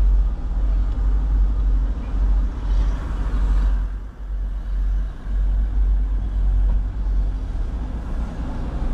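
Low, steady rumble of a car's engine and tyres at slow driving speed, heard from inside the cabin, with a brief hiss about three seconds in.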